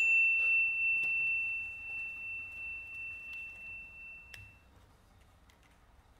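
A small metal object, struck just before, rings with one clear high note. The note wavers as it fades away over about four seconds, and a light click comes near the end.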